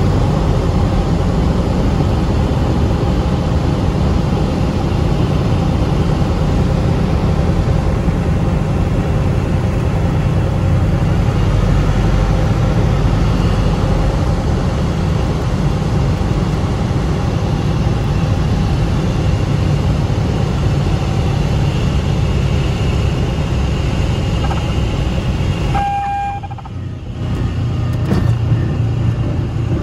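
Cessna 182 Skylane's piston engine and propeller droning steadily inside the cabin on final approach. Near the end the drone drops briefly as power comes back for the touchdown, with a short tone sounding, then rises again as the plane rolls down the runway.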